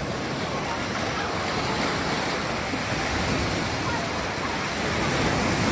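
Surf washing in over the shallows: a steady rush of breaking waves.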